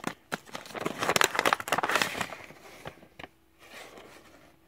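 Paper rustling and crinkling as a mailed envelope is handled and opened: a dense run of crackly rustles and small clicks for about three seconds, then quiet.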